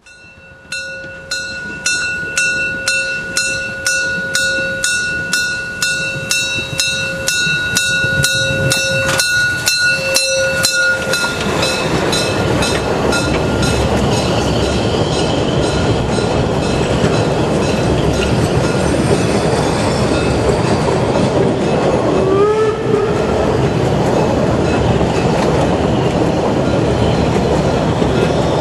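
Narrow-gauge steam locomotive starting away. Its exhaust chuffs come faster over the first ten seconds, with a steady high tone held above them. Then the coaches roll past close by in a dense, steady rumble and clatter of wheels on rail, with a brief squeal about two-thirds through.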